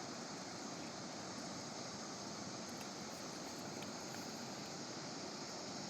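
Fast mountain river rushing over rocks: a steady, unbroken wash of water noise.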